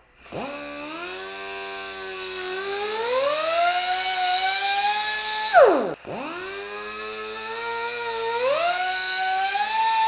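Rotary tool with a cutoff disc cutting through stainless steel braided hose, a pitched motor whine that climbs in pitch as it runs. It winds down with a falling pitch about halfway through, then starts up again for a second run.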